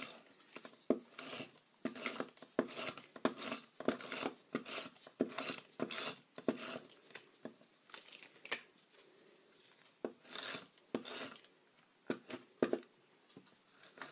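Glue tape runner drawn across a small paper card in many short, irregular strokes, with the card being pressed and handled on a wooden table between strokes.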